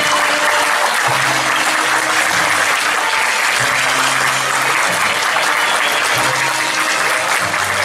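Audience applauding steadily, with held low notes of music underneath.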